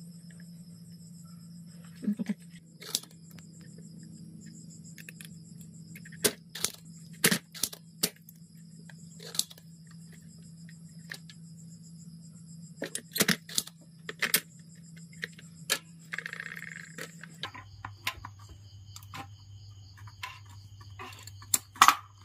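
Spring-loaded desoldering pump snapping as solder is sucked off the shorted MOSFET's pins on the induction cooker's circuit board: a dozen or so sharp clicks at irregular intervals. Under them runs a steady low hum and the high trill of crickets.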